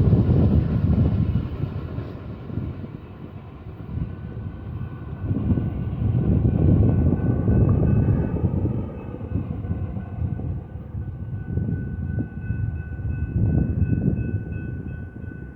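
BNSF intermodal freight train's cars rolling past on the rails: a low rumble that swells and fades several times. Faint steady high tones come in about halfway through.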